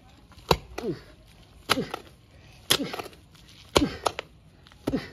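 Steel hoe blade (pacul) chopping into damp, stony red soil while digging a hole: five sharp strikes about a second apart, each followed by a brief falling sound.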